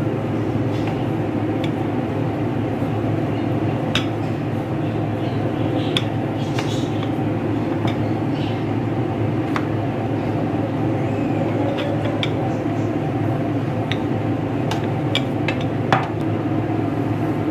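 A steady low hum with a few scattered light knocks and clinks, from a wooden rolling pin and hands working pizza dough on a work surface.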